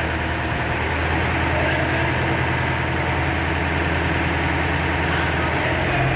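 A heavy engine running steadily; its pitch steps up slightly near the end.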